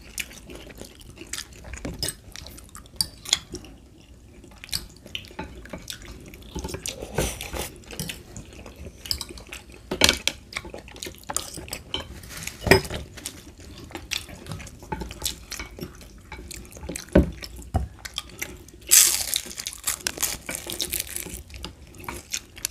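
Forks and a spoon clicking and scraping against a serving tray and a glass bowl as the last of the sauce is scooped up, in many short irregular strokes, with a longer noisy stretch of scraping near the end.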